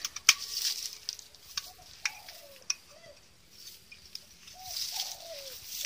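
A dove cooing: several short coos that slide downward in pitch, the longest near the end, over a faint high hiss, with a few sharp clicks.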